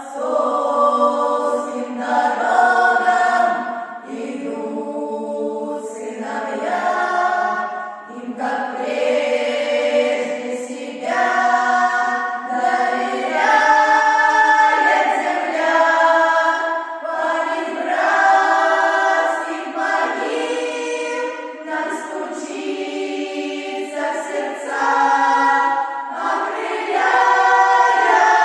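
A choir singing in long held chords, the chord changing every second or two, with the loudness swelling and falling between phrases.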